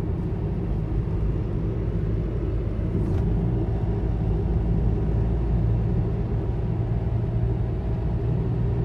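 Steady low rumble of a vehicle driving at highway speed: engine and tyre road noise heard from inside the cabin.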